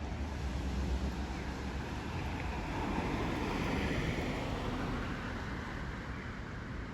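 Steady wind buffeting the microphone over the wash of sea surf.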